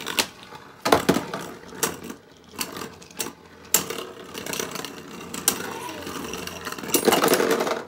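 Two Beyblade spinning tops whirring and clashing in a plastic stadium: several sharp clacks as they strike each other and the stadium wall, then a steady rattling spin that gets louder near the end.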